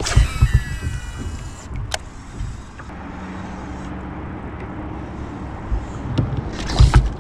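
Fishing reel spool whirring with a falling pitch as a lure is cast out, ending in a sharp click near two seconds in. A steadier low whir follows as the line is reeled in, with a few knocks near the end.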